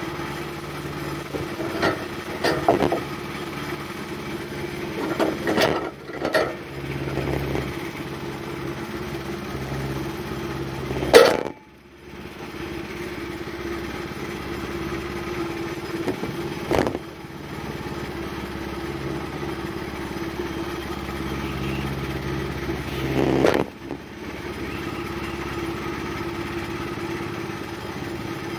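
Woodland Mills HM126 portable sawmill's gas engine running steadily, with scattered clanks and knocks. The loudest is a sharp bang about eleven seconds in.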